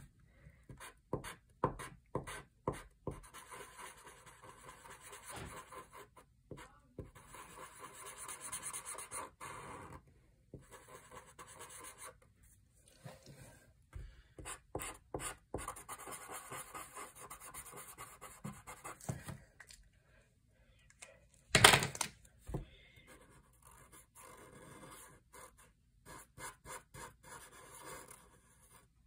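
Felt-tip permanent marker scratching on paper in stretches of quick back-and-forth strokes as an area is coloured in, with small ticks of the tip. One sharp knock sounds about three-quarters of the way through.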